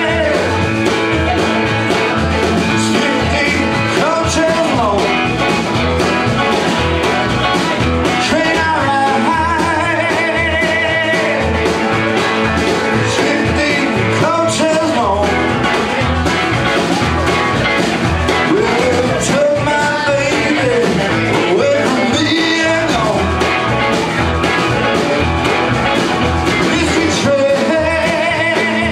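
A live blues-rock band plays an uptempo rock-and-roll number: electric guitars, electric bass, drums and saxophone over a steady driving beat.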